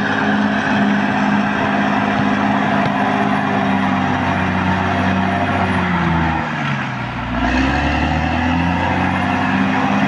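Caterpillar D6R XL bulldozer's diesel engine running hard with the clatter of its tracks. About six seconds in the engine pitch sinks and the sound dips briefly, then it picks back up.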